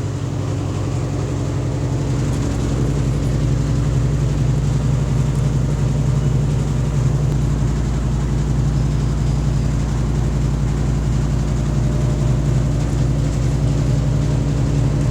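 Easy 6.0 washing machine running with a loud, steady mechanical drone that grows a little louder over the first few seconds; the machine bangs very hard while it runs.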